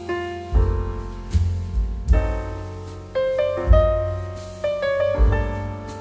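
Background piano music: slow struck notes and chords over low bass notes, each ringing and dying away.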